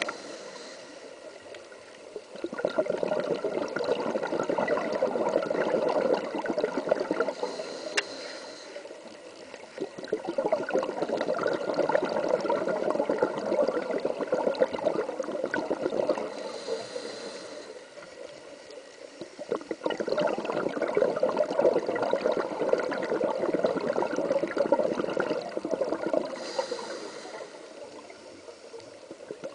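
Scuba diver's breathing heard underwater: three long bursts of bubbles from exhaling through the regulator, each a few seconds long, with a short hiss from the regulator in the pauses between them.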